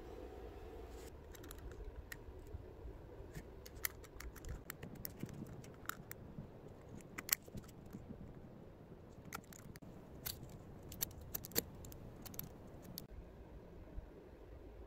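Irregular light metallic clicks and scrapes as a utility knife blade pries at a rusted steel part stuck on a metal sleeve.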